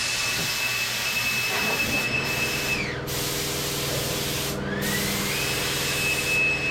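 Electric blower running flat out on its turbo setting: a steady rush of air with a high motor whine. About three seconds in the whine falls away as the motor winds down, then it spins back up to full speed a couple of seconds later.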